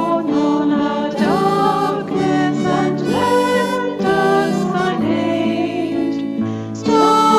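Women's voices singing a hymn in soprano and alto parts over piano, string-pad keyboard and guitar accompaniment.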